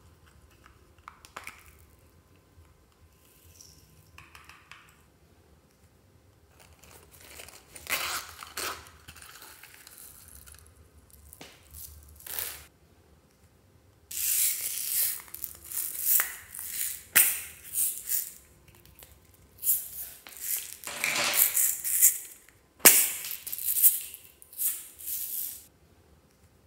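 Small beads poured from containers into a glass dish of slime, rattling in a series of pours. The pours start about halfway through, after quieter handling clicks.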